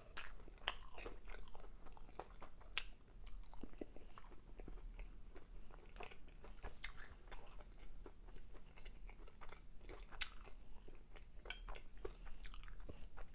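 A person chewing a mouthful of food: soft, irregular clicks and crunches.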